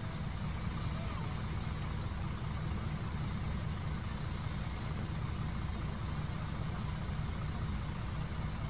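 A steady low rumble with a hiss above it, even in level throughout, with no distinct calls or knocks.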